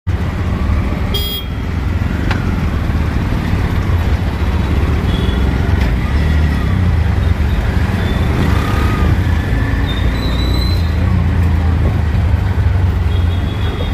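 Traffic and road noise heard from a moving vehicle: a loud, steady low rumble, with short vehicle horn toots from the surrounding traffic a few times.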